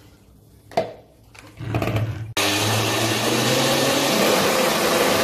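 Countertop electric blender grinding soaked rice with water into a batter. After a knock about a second in, the motor starts at a lower speed, then jumps to a loud, steady full-speed whirr about two and a half seconds in.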